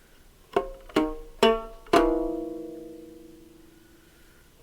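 Four plucked notes on an Ethiopian string instrument, about half a second apart; the last note rings on and slowly fades away.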